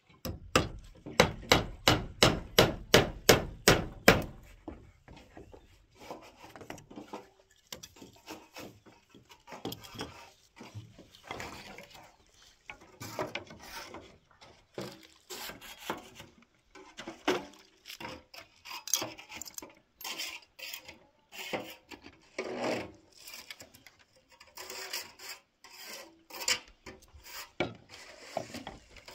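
A fast, even run of about a dozen sharp knocks, about three a second, over the first four seconds. Then irregular knocking and scraping.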